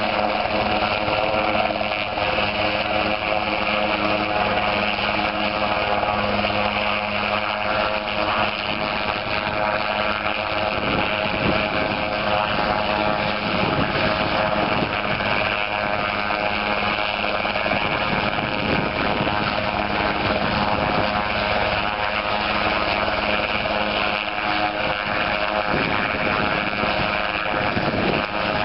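Helisport CH-77 ultralight helicopter running steadily, its engine and two-blade main rotor turning close by.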